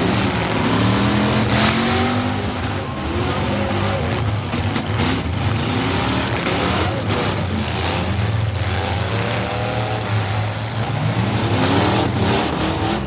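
Demolition derby car engines revving, their pitch rising and falling again and again over a constant loud din.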